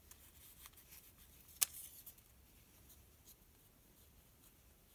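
Faint, scratchy strokes of a paintbrush spreading PVA glue on a paper cutout, with one sharp click about one and a half seconds in.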